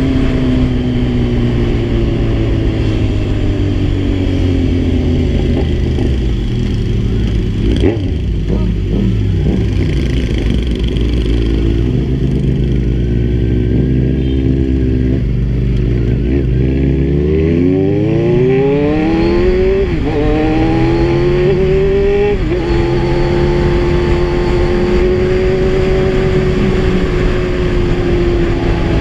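Kawasaki Z1000 inline-four motorcycle engine heard while riding. The engine note falls for the first few seconds as the bike slows and stays low through the middle. From about 17 seconds in it revs up hard, with two upshifts about 20 and 22 seconds in, then settles into a steady cruise.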